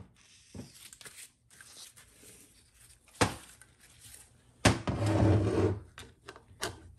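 A TH350C transmission valve body being handled on a workbench: a sharp click about three seconds in, then a knock as the casting is set down, followed by about a second of scraping as it slides on the bench. A few light clicks come near the end.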